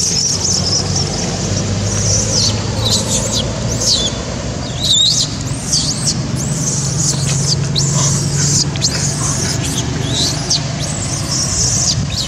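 Infant long-tailed macaque screaming in distress, a rapid string of high-pitched squealing cries, some rising and falling in pitch, as an adult pushes it away.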